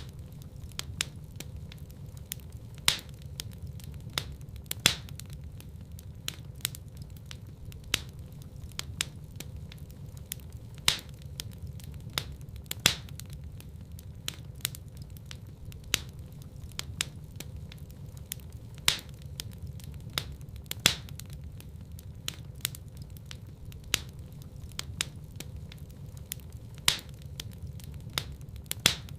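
Wood fire crackling in a fireplace: a steady low rumble of burning with frequent small snaps and louder sharp pops every couple of seconds.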